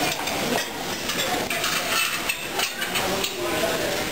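Dishes and metal utensils clinking and clattering: a string of sharp, irregular clinks and knocks.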